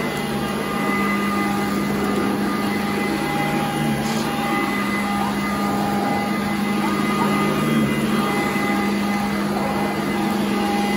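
Sanitaire upright vacuum cleaner running as it is pushed over carpet: a steady motor hum with a constant whine.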